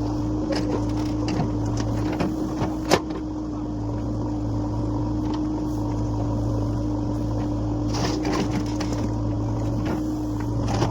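Backhoe loader's diesel engine running steadily under work, with scattered knocks: a sharp one about three seconds in and a cluster near the end.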